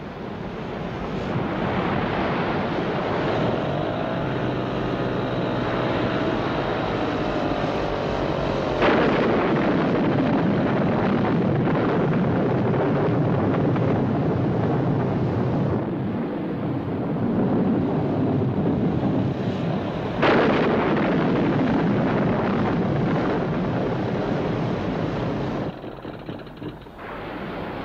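Stormy sea: steady wind and rough waves, with two sudden louder surges of water about nine and twenty seconds in, easing off near the end.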